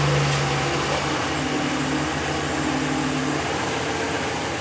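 Ram 1500 pickup engine idling steadily just after being started, easing off slightly near the end.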